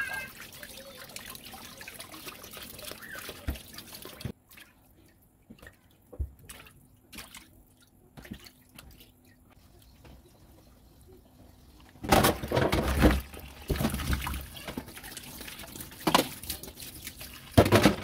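Running water from a kitchen tap, with splashing as food is rinsed under it. The water stops about four seconds in, leaving a quiet spell of small drips and clicks, then runs hard again in loud surges from about twelve seconds in.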